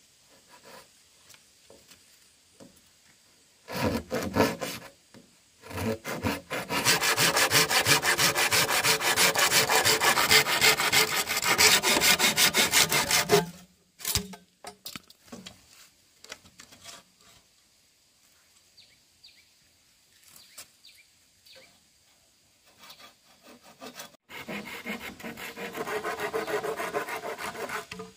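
Hand saw cutting wood. A short burst comes about four seconds in, then a long run of quick, even strokes lasting about seven seconds, and a second run of strokes near the end.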